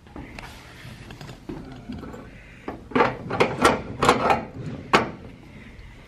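A quick run of about seven sharp clicks and knocks near the middle, over faint rustling: door hardware being worked, typical of a lock or latch on a storage unit door.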